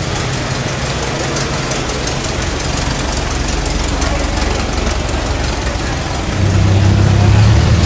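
Engines of vintage cars running at walking pace, a steady low hum. About six and a half seconds in it grows louder as a vintage Rolls-Royce saloon draws near.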